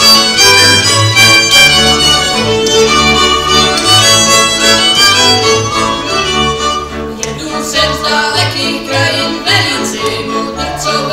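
Folk string band playing an instrumental passage of a Christmas carol, fiddles leading over a low bass line.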